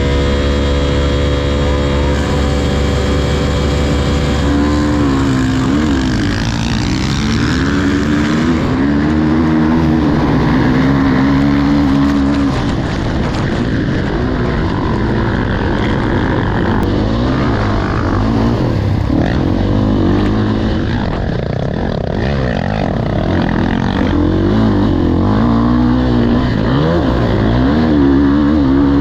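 Motocross motorcycle engine running at steady revs for the first few seconds, then revving up and dropping again over and over as it accelerates and changes gear.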